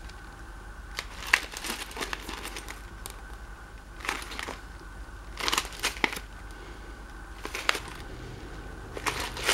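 Clear plastic zip bag packed with assorted plastic buttons being handled and squeezed: the bag crinkles and the buttons click against each other in about five short bursts.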